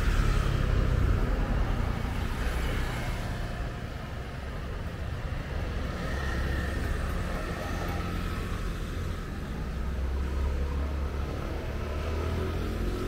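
A motor engine running low and steady amid outdoor traffic noise. It dips a little about four seconds in.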